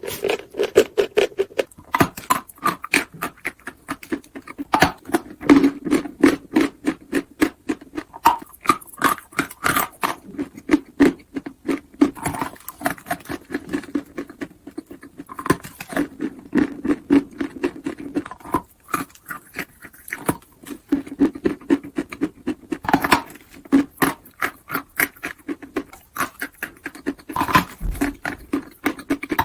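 Close-up crunching of chalk being chewed: a dense run of small sharp cracks, several a second, without a pause.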